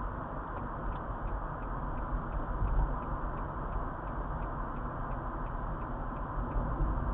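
Car in motion, with steady road and engine noise. Over it comes a light, regular ticking about three times a second, starting about half a second in and stopping shortly before the end.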